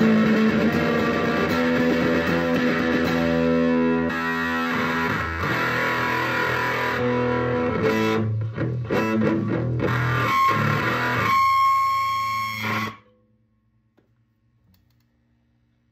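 Gibson Gospel acoustic guitar with a DeArmond pickup played through a pair of Fender Champ amps with Little Big Muff fuzz: distorted strummed chords, then a held buzzy note that cuts off suddenly near the end, leaving near silence.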